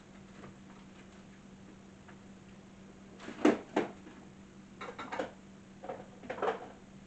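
Refrigerator door opened and shut while something is put away inside. Two sharp knocks come about three and a half seconds in, then several softer bumps and clatters, over a low steady hum.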